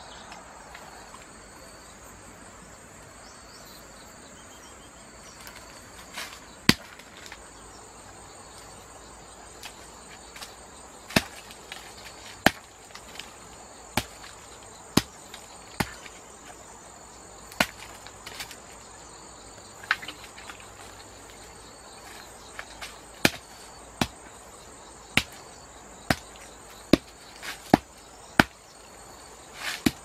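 Steady high-pitched drone of insects such as crickets, with about fifteen sharp knocks or chopping strikes at irregular intervals, the first coming around seven seconds in.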